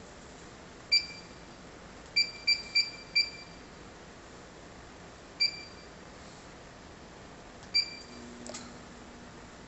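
Keypad beeps from an Autool LM706 refrigerant recovery machine's control panel as its menu buttons are pressed: seven short, high beeps, with a quick run of four about two seconds in. Near the end a click comes, and a faint low hum starts.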